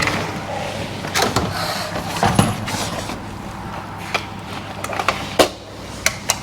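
Door and handling noises: several sharp clicks and knocks, a louder knock about two seconds in and another about five seconds in, over a steady low hum.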